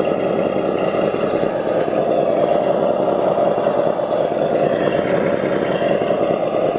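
Simulated engine sound idling steadily, without revving, played through the speaker of a GT Power RC car engine sound simulator fitted in a Tamiya Blitzer Beetle.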